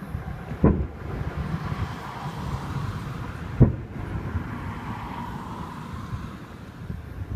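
Two aerial fireworks shells bursting with deep booms, about three seconds apart, over a steady low rumble.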